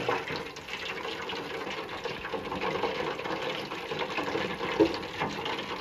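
Boneless chicken deep-frying in hot oil under the closed lid of a tabletop auto-lift fryer: a steady sizzle with fine crackling.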